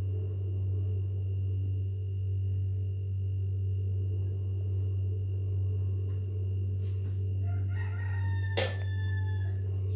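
A rooster crows once near the end, one long call falling slightly in pitch, over a steady low hum. A single sharp clink sounds midway through the crow.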